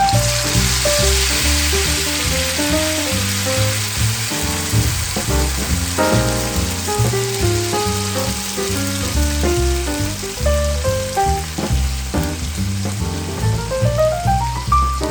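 Food sizzling in hot oil in a frying pan, starting suddenly and easing off slowly, over background music with a melody and bass line that ends in a rising run of notes.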